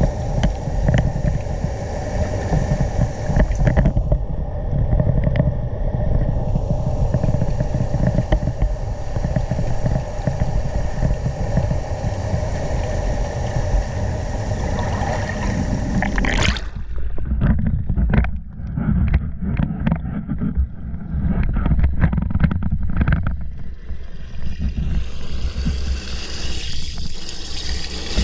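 Water swirling in a vortex, heard from a camera submerged in it: a steady low churning rumble with a faint steady hum. About two-thirds of the way through the sound thins and a run of sharp knocks and clicks comes in, then the fuller churning returns near the end.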